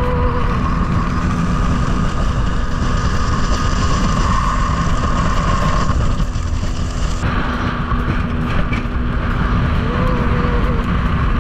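Mercury Optimax outboard motor running at speed, driving an aluminum fishing boat across choppy water: a steady engine whine over a heavy rush of wind and water.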